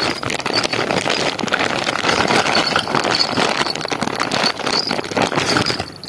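A thin plastic bag crinkling and rustling as it is handled close up: a dense, continuous run of crackles.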